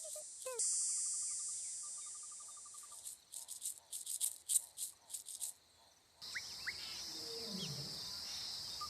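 Daytime insect ambience. A high steady buzz and a fast pulsed chirping run for about three seconds, followed by a run of separate short chirps. After a brief drop-out about six seconds in, a different steady insect drone starts, with a few short rising bird whistles.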